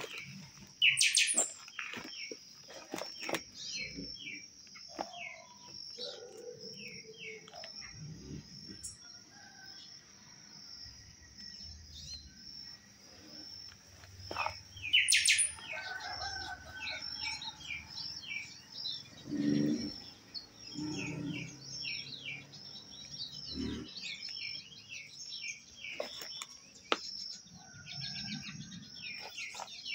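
Birds chirping and calling, many short chirps over a steady high trill, with two loud calls about a second in and about halfway through. A lower, louder sound comes a little past the middle.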